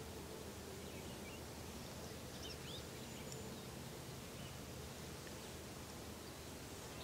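Steady outdoor background noise with a faint low hum, and a few faint, high bird chirps about two and a half to three and a half seconds in.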